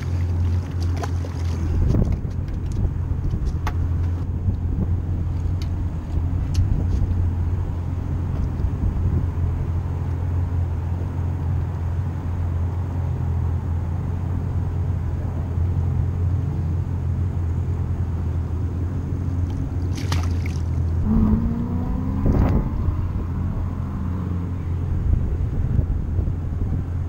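A steady low engine hum, with scattered clicks and knocks from handling the fish and tackle. About three-quarters of the way through there is a brief squeaky, wavering sound.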